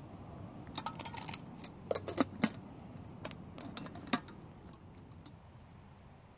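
Light metallic clinks and rattles of a camping pot and its wire bail handle as the pot is handled and picked up, in three short clusters over the first four seconds.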